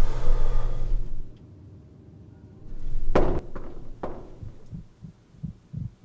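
A low hum for about a second, then two sharp knocks on a door, then soft, low thumps in an uneven heartbeat-like rhythm.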